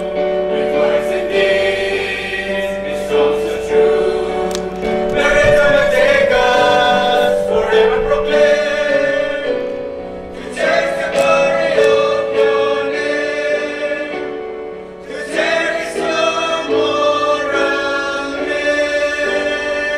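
A choir of young men and women singing together in slow, sustained phrases, breathing between phrases about ten and fifteen seconds in.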